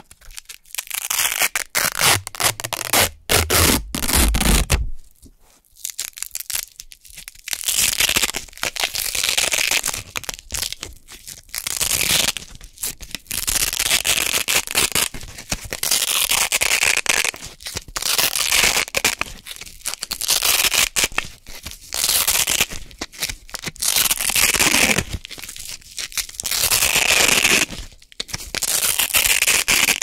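Velcro (hook-and-loop) circles pulled apart close to the microphone over and over: super crunchy tearing in bursts a second or two long, with short pauses between pulls and one longer pause of about two seconds near the start.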